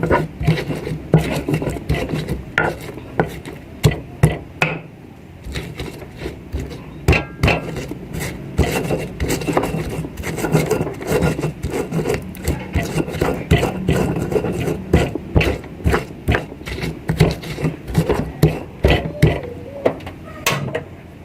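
Kitchen work: irregular scraping, rubbing and short knocks of utensils against cookware, over a steady low hum.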